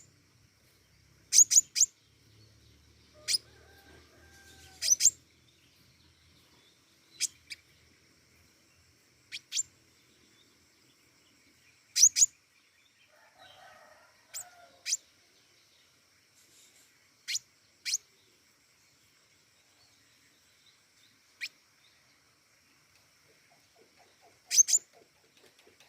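Pentis raja, a flowerpecker, giving short, sharp, high-pitched chips that drop steeply in pitch, singly or in quick runs of two or three, every second or few, over a faint steady high hum.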